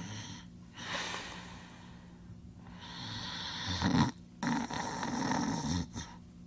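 Voiced snoring, slow and heavy: a breathy breath, then a long drawn-in breath that ends in a loud snort about four seconds in and runs on into a rumbling snore.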